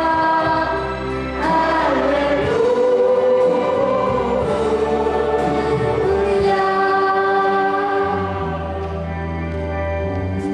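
A choir singing with a girl's solo voice on a microphone, in long held notes over a low, steady accompaniment.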